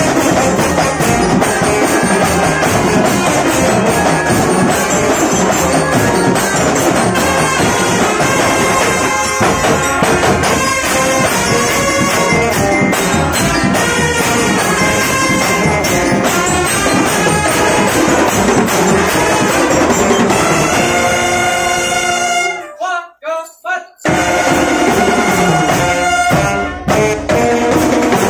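Marching drum band playing: snare and bass drums driving under trumpets and other brass. Near the end the brass holds a long chord, the band breaks off into a few short stabs with silent gaps, then comes straight back in together.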